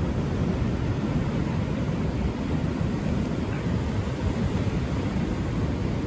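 Strong wind buffeting the microphone over rough surf: a steady, deep rushing noise.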